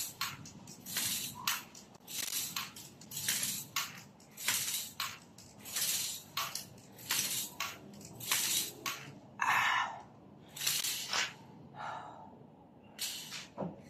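A man's sharp hissing breaths, about one or two a second, in time with repeated reps of bending a spring power twister bar, with two lower-pitched bursts in the second half.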